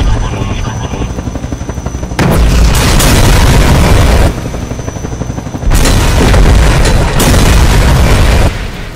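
Two long explosion blasts, each lasting two to three seconds and starting and stopping abruptly, about a second and a half apart. A music track is heard before and between them.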